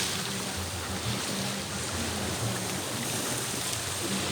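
Steady wash of sea surf and wind on a beach.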